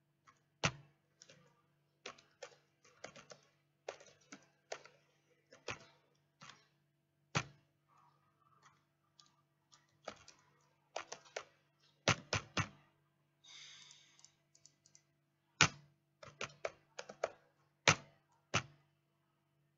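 Typing on a computer keyboard: quick irregular keystrokes in runs and pauses, with a few louder key strikes. A faint steady low hum runs underneath.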